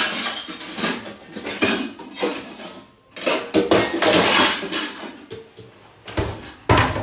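Stacked stainless steel mixing bowls clattering and scraping against each other as one is pulled from the pile, with a dull thump near the end.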